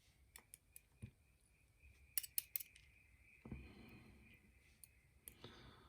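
Faint, light clicks and taps of small metal lock pins and tools being handled, with a few sharper clicks about two seconds in and brief soft rustling.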